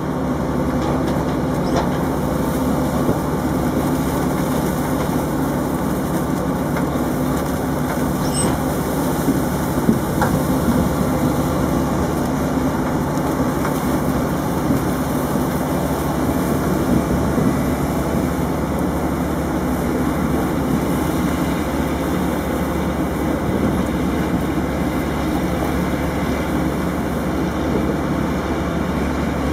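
Heavy diesel farm machinery running steadily: a continuous low engine drone with no pauses or changes.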